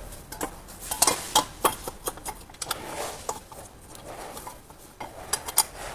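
Scattered light clicks and taps of hand tools and metal parts being handled, irregular and a few to the second.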